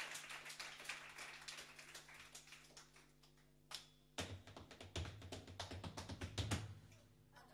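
Scattered light taps and clicks, dense at first and thinning out, then low knocks mixed with taps from about four seconds in, fading near the end.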